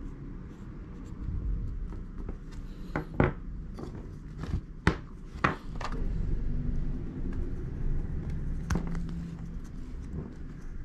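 Close handling of a rubber stamp-carving block and craft knife on a wooden table: rubbing and shifting with a handful of sharp clicks and taps, most of them in the middle.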